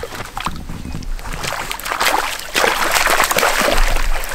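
A hooked tiger trout thrashing and splashing at the water's surface, growing louder and more violent about two and a half seconds in as a landing net is scooped through the water around it.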